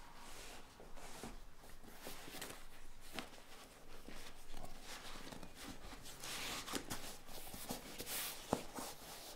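Leather seat cover being handled and stretched over a seat cushion by hand: irregular rustling and rubbing of the leather with scattered light taps and clicks, and one sharper click about eight and a half seconds in.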